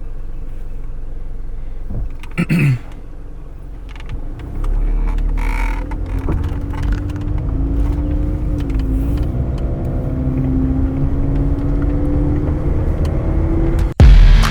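Car engine and road rumble heard from inside a moving car, the engine note slowly rising through the second half as the car gathers speed. A brief louder noise comes about two seconds in, and the sound cuts off abruptly just before the end.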